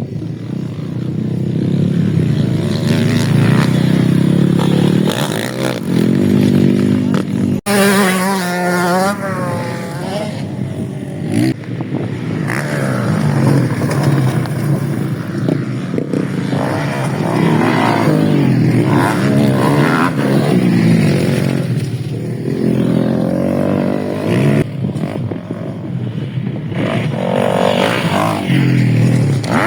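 Motocross bike engines running and revving, the pitch rising and falling as the bikes accelerate and shift, with a brief break in the sound about eight seconds in.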